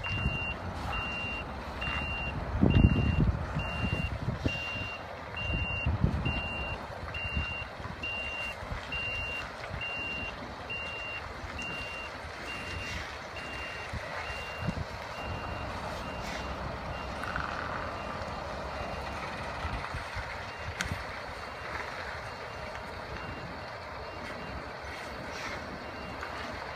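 MAN 8x4 ballast tractor's diesel engine pulling a heavily loaded heavy-haul combination away, with loud surges of low engine noise about 3 and 6 seconds in, then a steadier rumble. A vehicle warning beeper sounds about twice a second and fades away around halfway through.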